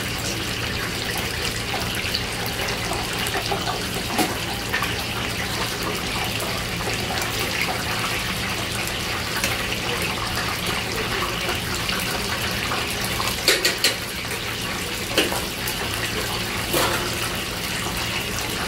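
Batter-coated octopus pieces deep-frying in a commercial fryer: a steady sizzling hiss of bubbling oil over a low hum. In the second half come a few sharp clicks from metal tongs turning the pieces.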